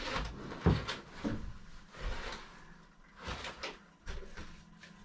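Cardboard box and packaging being handled and rummaged through: rustling with several short knocks and bumps.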